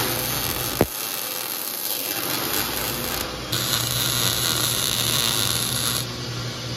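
MIG welder arc welding steel race-car chassis tubing: the steady, dense crackle of the arc and spatter, with a single sharp click about a second in.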